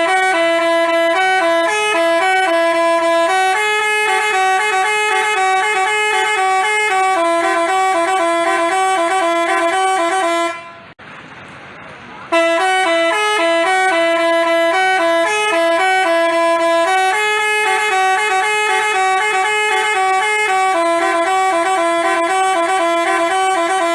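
Basuri telolet horn playing a multi-note tune: a phrase of about eleven seconds, a short break, then the same phrase repeated note for note.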